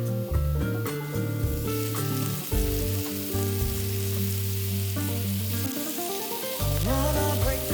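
Food sizzling as it fries in a pan, a steady hiss, over background music with held bass notes and chords; a singing voice comes in near the end.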